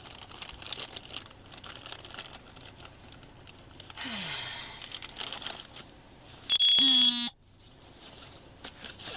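Rustling and handling noise of clothing and gear rubbing against a body-worn camera. About four seconds in comes a short falling sound, and near the end a loud pitched tone lasting about half a second that cuts off sharply.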